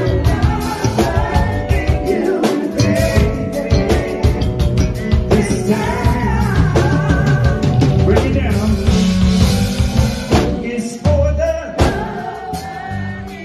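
Live band playing a soul/R&B song: singers over drum kit, electric guitar and keyboards, the band easing off near the end.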